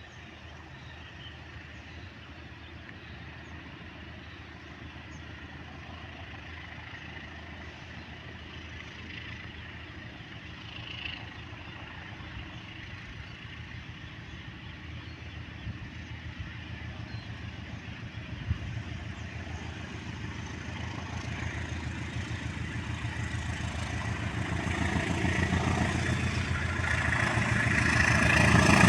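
Kirow railway crane's diesel engine running steadily, getting louder over the last several seconds, with a few brief knocks.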